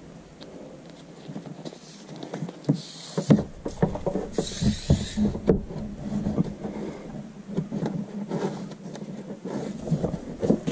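A rubber grommet and wiring cable being handled and pushed into a hole in a car's underbody: a string of small irregular knocks, rubs and rustles, with two short hissing scrapes about three and four and a half seconds in. A low steady hum sets in about three seconds in.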